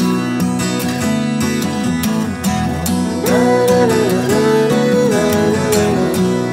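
Background music led by guitar, with a melody line that bends up and down over steady held notes.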